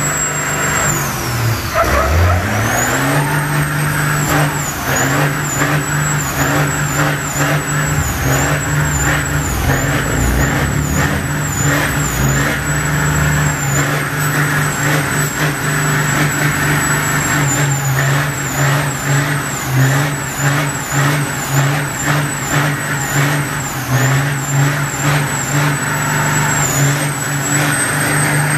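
Race semi truck's Detroit Diesel engine held at high revs during a burnout, rear tires spinning. About a second in the revs sag, then climb back and hold steady.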